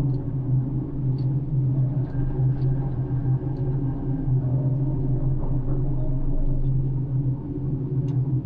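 Crane engine running at a steady hum, with a few faint ticks over it.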